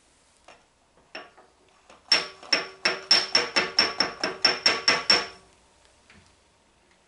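Small hammer tapping the steel magnetic chuck on a surface grinder table, nudging it square to the table travel. There is one tap about a second in, then a quick run of about a dozen light ringing taps, roughly four a second.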